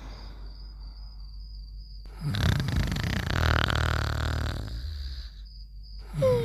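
Cartoon snoring sound effect: a long, rough, rattling snore on the in-breath, starting about two seconds in and lasting about three seconds. Right at the end the falling whistle of the out-breath begins.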